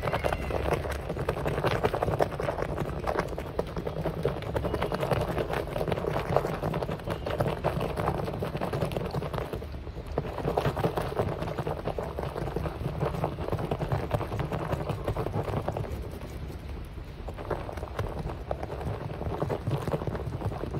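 Water being churned by hand in a plastic tub: continuous sloshing and splashing as detergent powder is worked up into a thick foam, easing briefly twice.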